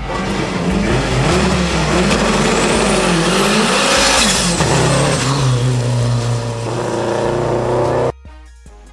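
700-plus-horsepower turbocharged drag car launching and accelerating hard down the strip, its engine pitch rising and dipping through the gears and loudest about four seconds in. It then settles into a steadier drone that cuts off abruptly near the end.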